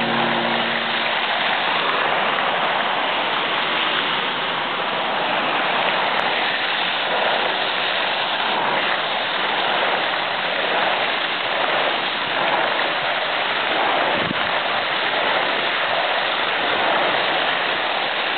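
Fountain jets splashing steadily into a pool.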